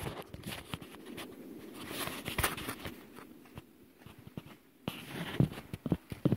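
Close handling noise: irregular clicks, scrapes and rustles of clothing and gear. There is a short lull a little before five seconds in, then a few louder knocks.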